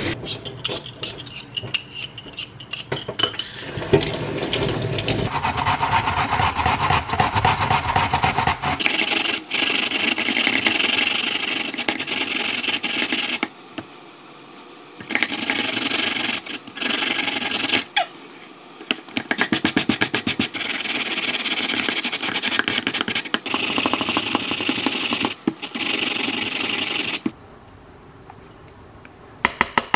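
Raw potato grated by hand on a plastic box grater: a fast, continuous rasping scrape in long stretches, with a couple of short pauses, stopping a few seconds before the end.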